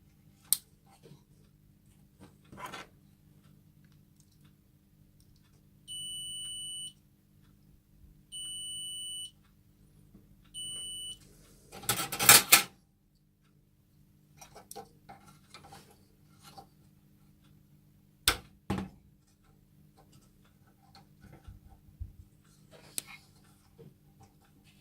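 Three high electronic beeps, each about a second long or a little less, then a loud brief clatter of clicks and knocks. Sharp handling clicks are scattered through the rest.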